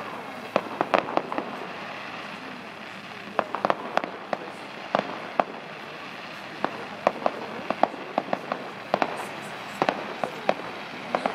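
Fireworks display: aerial shells bursting, with many sharp bangs and crackling pops at irregular intervals, coming in clusters.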